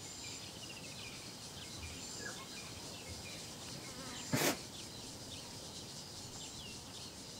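Insects buzzing and chirping, with faint short high chirps repeating. One brief, louder sound comes about four seconds in.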